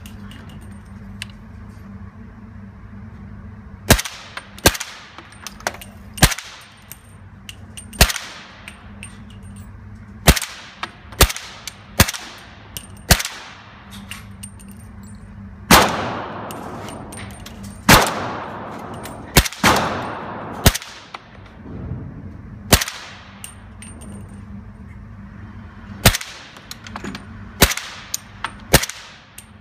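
Suppressed 300 Blackout AR pistol, a Liberty Leonidas suppressor on an 8.5-inch barrel, firing a string of single shots at an irregular pace, about seventeen in all. Each shot is a sharp, clanging report with a short ringing tail, heard over a steady low hum.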